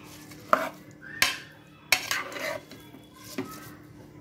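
Steel spoon stirring rice and vegetables in a steel pressure cooker, scraping along the pot and clinking sharply against it three times in the first two seconds, then once more, softer, later on.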